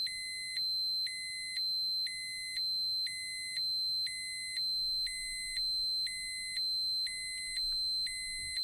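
Dosimeter alarm: an electronic beep repeating about once a second, each beep lasting a little over half a second, over a steady high-pitched tone that never stops.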